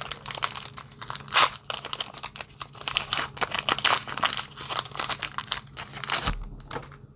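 Foil wrapper of a Pokémon trading-card booster pack being torn open and crinkled by hand, an irregular run of crackles that stops about six seconds in.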